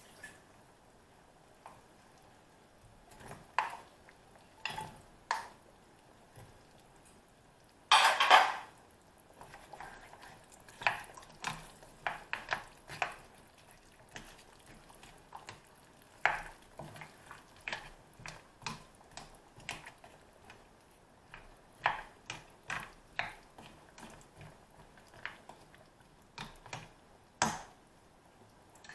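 A utensil knocking and scraping against a metal pan while chunks of potato and carrot are added and stirred into a thick stew: irregular clinks and scrapes, with a louder clatter about eight seconds in.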